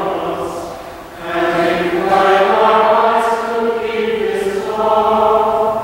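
Choir singing the chanted response that follows a commandment in the sung Decalogue, with a short break about a second in before the singing resumes.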